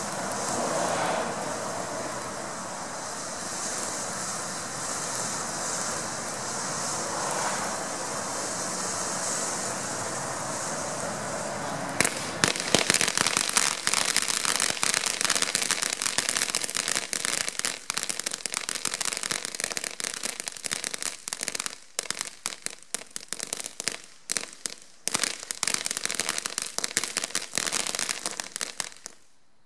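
Mama Mia ground fountain firework spraying sparks with a steady hiss. About twelve seconds in it switches to a loud, dense crackle that grows patchier toward the end and then stops.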